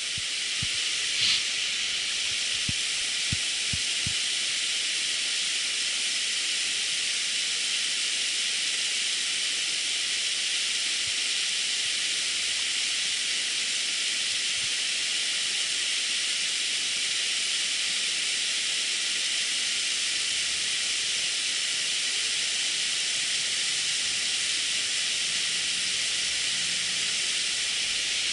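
Steady rush of river water pouring over a small weir and around rocks, an even hiss that does not change.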